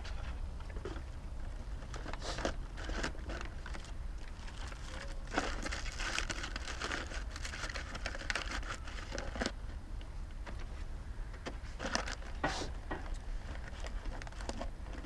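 Food wrappers being crinkled and crumpled by hand, an irregular crackling that is busiest a few seconds in and again near the end, over a steady low rumble.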